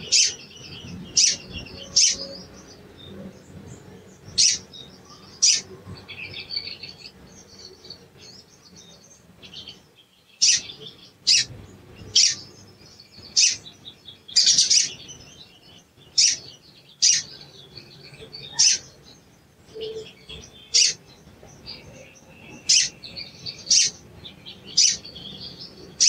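Olive-backed sunbird (sogon) giving sharp, high "cuit" chirps, short falling notes about one every second or so, with softer quick twittering between them.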